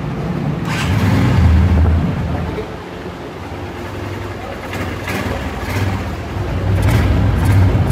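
Honda CB150F's single-cylinder four-stroke engine running and revved with the throttle to check its response: a rev about a second in that settles back, then another rev from about seven seconds on.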